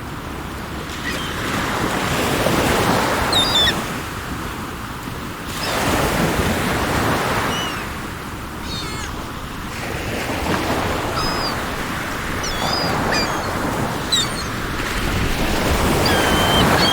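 Sea waves breaking and washing in, swelling and ebbing about every three to four seconds, with faint short bird chirps above.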